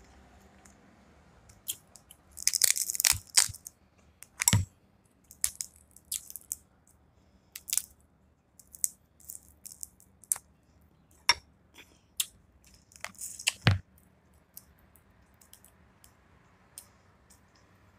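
Close-up eating sounds from a seafood boil: shellfish being peeled by hand and chewed, heard as irregular sharp clicks and wet crackles. There are two louder bursts of crackling, one about two and a half seconds in and one about thirteen seconds in.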